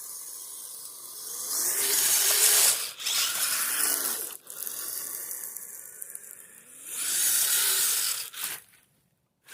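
Electric drivetrain of a Kyosho Blizzard radio-controlled tracked snow vehicle running with a high whine that rises and falls in pitch, surging louder twice as the throttle is worked. The sound drops away sharply shortly before the end.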